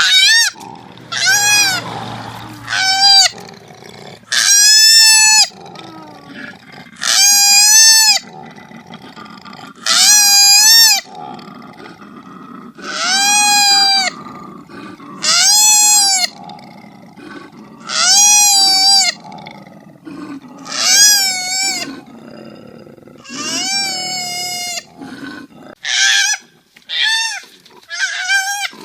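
Koala calling: a long series of high, pitched squealing cries, each about a second long and rising then falling in pitch, repeated every two to three seconds.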